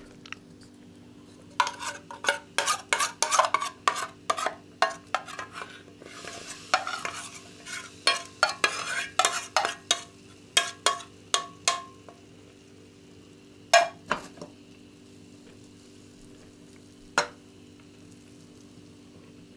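Kitchen utensil stirring and scraping in a pot, with a quick run of clinks and scrapes for about ten seconds, then two single knocks later on. A steady low electrical hum runs underneath.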